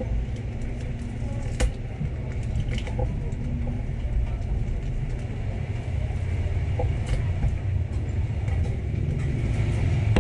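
Steady low rumble, with a few small clicks and taps from handling a smartphone's parts; the sharpest click comes about one and a half seconds in.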